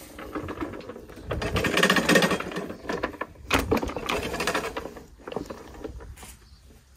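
Rapid mechanical rattling: a fast run of clicks in two bursts of about a second and a half each, the first one louder.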